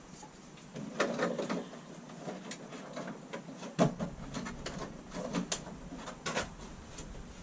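Scattered clicks and knocks of hand work fitting a light switch and its cover plate into the wall with screws, the sharpest knock about four seconds in.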